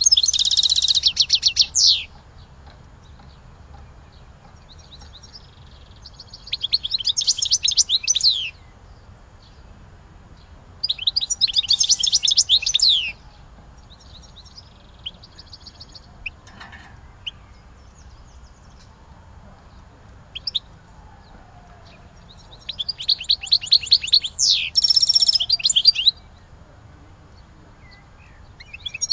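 A songbird singing four short, rapid trilled phrases of about two seconds each, spaced several seconds apart. Each phrase ends in a falling sweep. Faint single notes come between the phrases.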